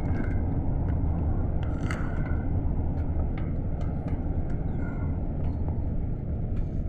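Steady low engine and road rumble inside a Luidor-225019 minibus (GAZelle Next) cabin while it drives, with a few faint clicks and rattles.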